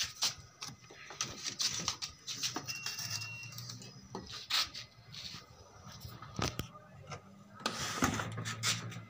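Handling noise at a workbench: scattered irregular clicks, taps and rustles over a faint low hum, with a short faint high tone about three seconds in.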